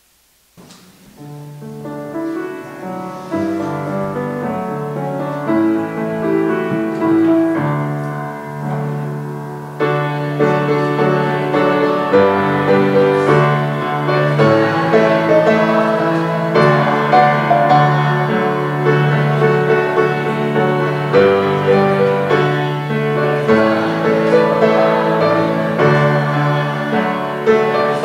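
Slow instrumental keyboard music of held chords and a melody. It starts softly about half a second in and swells, growing louder about ten seconds in.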